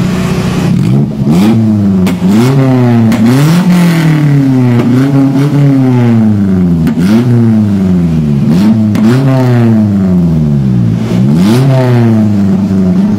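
Daihatsu Gran Max engine heard through an aftermarket DK 03 v3 exhaust muffler, revved repeatedly in quick blips. The pitch shoots up and drops back each time, roughly once a second.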